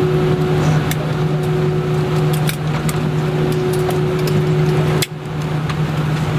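Steady low cabin hum of an Airbus A319 taxiing to the gate, with a fainter steady tone above it and scattered light clicks and jingles. The sound dips briefly about five seconds in.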